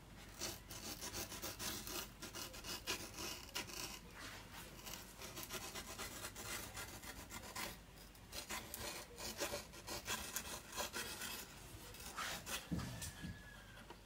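A small knife blade slicing along the gummed brown paper tape at the edge of a stretched watercolour sheet, a faint run of quick scratchy strokes that cuts the painting free from its board.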